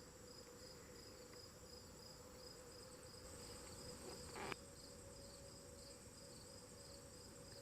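Faint insect chorus of the kind crickets make in late summer: a steady high trill with a pulsing high note. A brief soft sound about four and a half seconds in.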